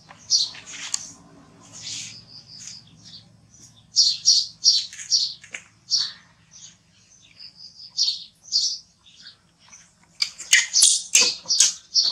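Infant macaque crying in short, high-pitched squeaks that come in quick clusters with short pauses between them. These are distress calls from a wet, cold baby monkey being towelled after a bath.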